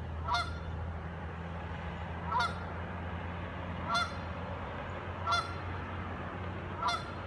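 Canada geese honking: five short honks about every second and a half, over a steady low rumble.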